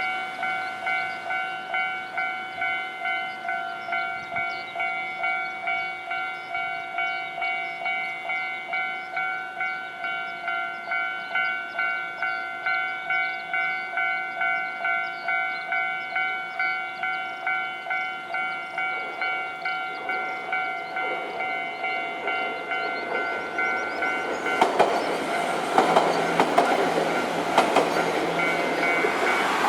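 Japanese level-crossing warning bell ringing in a steady, even rhythm, a little under two strikes a second. About three-quarters of the way through, a train rushes past over the crossing, its wheels knocking on the rail joints, while the bell keeps ringing.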